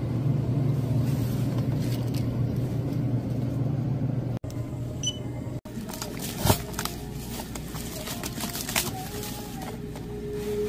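A steady low hum, then a burst of crinkling and crackling plastic film as hands press and handle a wrapped cup-rice ready-meal box. A sharp crackle about six and a half seconds in is the loudest moment.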